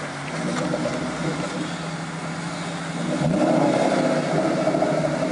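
Ford Mustang Mach 1's 4.6-litre V8 held at high revs in a burnout, the rear tyres spinning and smoking on wet pavement. About three seconds in the revs climb and it gets louder.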